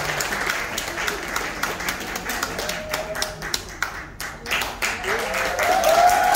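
Audience applauding, the claps thinning out around the middle. Near the end a raised voice calls out, rising in pitch.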